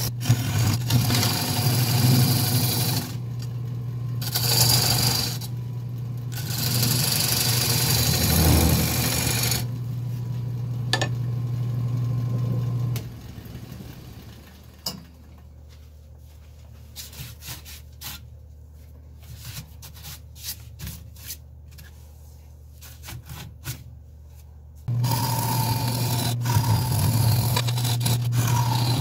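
Nova 3000 wood lathe running with a steady motor hum while a turning tool cuts the inside of a spinning acacia bowl, giving a scraping hiss with brief pauses. About 13 seconds in it drops to a much quieter, lower hum with scattered light clicks. Near the end the loud hum and cutting return.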